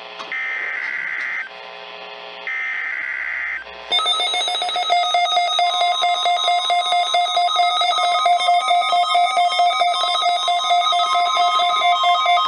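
NOAA Weather Radio test signal: two short bursts of SAME digital header data, then from about four seconds in a loud, steady warning alarm tone with a rapid pulsing flutter, the weather radio alert tone that can switch on specially built receivers.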